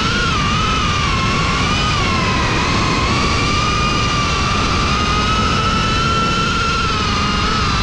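A cinewhoop FPV quadcopter's motors and ducted propellers whining, the pitch wavering up and down as the throttle changes, with a rushing noise underneath.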